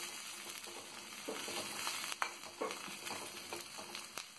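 Dried red chillies, garlic and curry leaves sizzling in coconut oil in a metal pan, stirred with a steel spoon that clicks and scrapes against the pan now and then.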